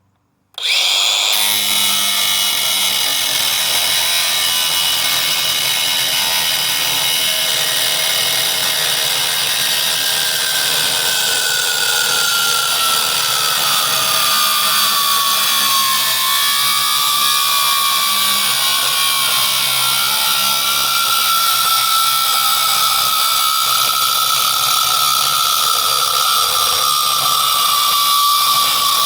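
Angle grinder cutting into the steel casing of an electric motor: a loud, continuous hiss with a motor whine that starts suddenly and sags in pitch as the blade bites, then holds steady.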